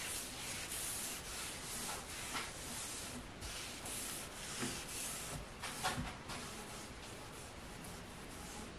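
A pad rubbing finish into an oak slab tabletop by hand, a dry scrubbing hiss in repeated strokes, with two light knocks, the louder one about six seconds in.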